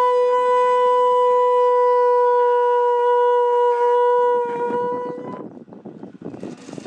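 A conch shell (shankha) blown in one long, steady horn-like note that sags slightly in pitch and stops about five seconds in, the traditional auspicious call of a Bengali wedding ritual. Rough, noisy sound follows it.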